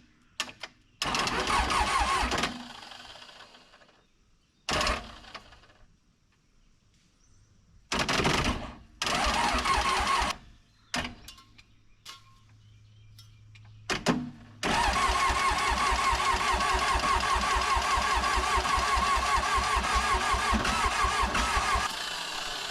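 Starter motor cranking the Case backhoe's diesel engine in several short bursts with gaps between, then one long crank of about seven seconds, the engine turning over in an even rhythm with a starter whine but not catching. The owner thinks the starter's Bendix is worn, so it engages only on and off.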